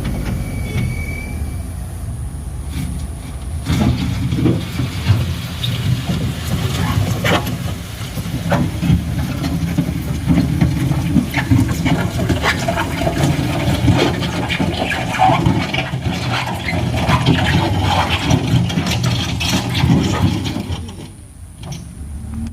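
Heavy truck engine running under load, a steady low drone, with many sharp clicks and crackles over it from about four seconds in; the sound dips briefly near the end.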